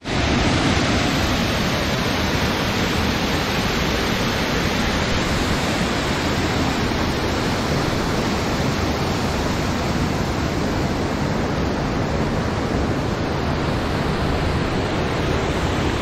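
Waterfall: a steady rush of falling water pouring onto rock.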